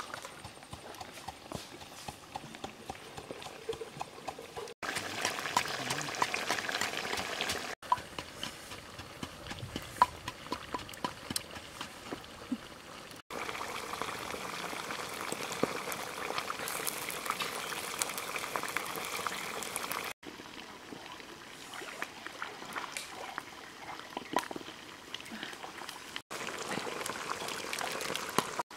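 Cooking sounds in several short cuts: scattered light taps and clicks alternate with stretches of steady hiss, and near the end a red chili sauce pours into a coconut-shell bowl.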